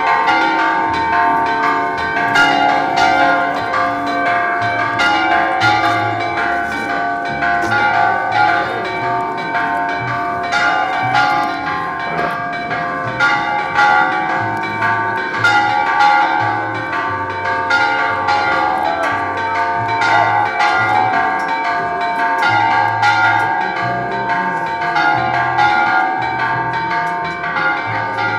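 Church bells pealing, struck rapidly and continuously so their ringing tones overlap without a break.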